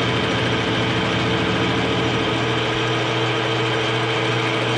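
Grizzly G0776 gunsmithing lathe running, its chuck spinning: a steady machine hum with a few steady tones.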